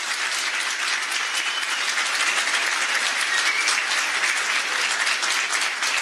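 An audience applauding steadily.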